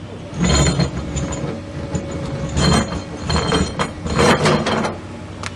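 Machinery working: several loud bursts of mechanical clanking and grinding with a metallic ring, each under a second long.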